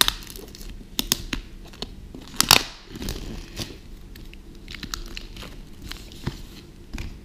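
Plastic shrink-wrap on a board-game box crinkling and tearing as hands pull it open, in scattered crackles with one sharp rip about two and a half seconds in.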